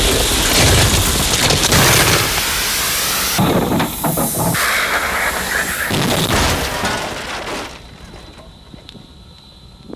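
Rocket motor firing: a loud rushing roar that changes abruptly several times, then falls away about eight seconds in, leaving a faint hiss.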